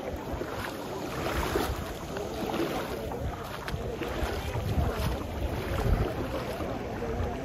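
Wind gusting on the microphone, with the sea washing on the beach behind it.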